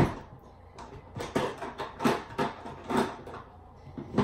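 Rummaging for a makeup compact: a sharp knock at the start, then a handful of short clacks and rustles as small items are moved about.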